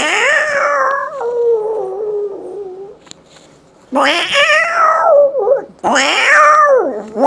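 A man's voice imitating two cats fighting: drawn-out, wavering caterwauling yowls. A long yowl sliding down in pitch over about three seconds is followed, after a brief pause, by two shorter yowls in quick succession.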